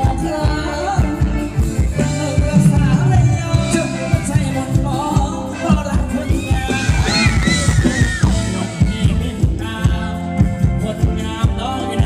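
Band playing Thai ramwong dance music, with a singer over a steady drum beat.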